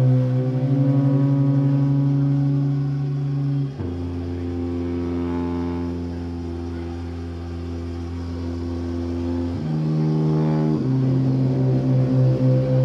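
Tubas holding long, low drone notes together, their pitches beating against each other in a steady wobble. About four seconds in, the lowest note drops and holds for several seconds, then the pitches step back up near the end.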